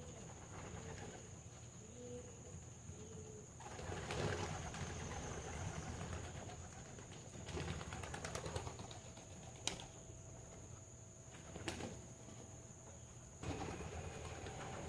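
Young racing pigeons at the loft: a few soft coos in the first few seconds, then rustling wing flaps from birds moving and taking off, with a few sharp clicks.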